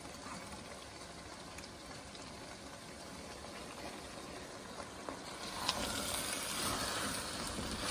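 Strained red chile sauce pouring into a hot pan of frying pork buche and chorizo, bubbling and sputtering steadily. About five and a half seconds in, a spatula starts stirring the wet meat and the sound grows louder.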